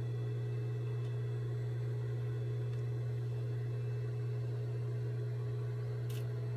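Steady low hum, with one short click near the end.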